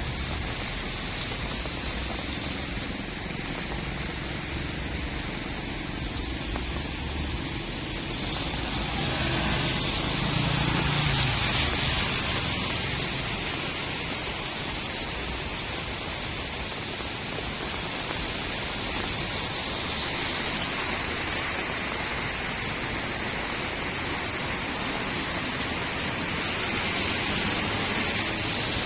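Steady rain falling on a street, with water gurgling. It swells louder for a few seconds about a third of the way in, then settles back.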